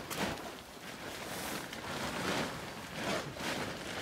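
Nylon tent flysheet rustling as it is handled, a series of soft swishing swells about once a second.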